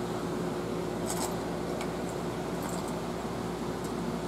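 Steady air-conditioner hum in a small room, with a few faint clicks and rattles of a spinning reel being handled and set down on a table.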